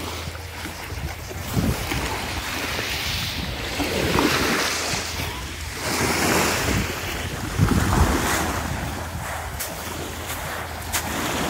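Small sea waves washing against the rocky shore and lapping up a coarse sand beach, swelling in surges. Gusts of wind rumble on the microphone.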